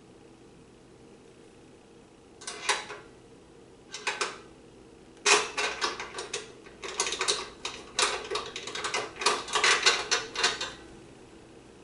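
Metal clicking and rattling as a steel locking handle is worked by hand into its bracket on a stainless steel baffle hood filter. Two short clatters come first, then a run of quick, dense clicks and rattles for about five seconds.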